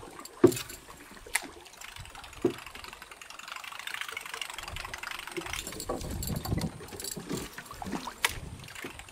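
A topwater lure splashing and plopping on the water surface as it is jerked back, with a few sharp pops, the first and loudest about half a second in.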